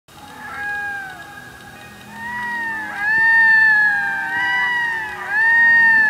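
Red-throated loon wailing: a run of drawn-out, arching calls about a second each, repeating and overlapping, growing louder about three seconds in.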